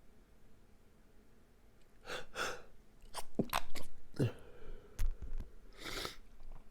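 A person's stifled sneezes, held in with the mouth and nose shut. After a quiet start come a couple of quick breaths, then a rapid cluster of short, sharp, clicky sneezes, and another near the end.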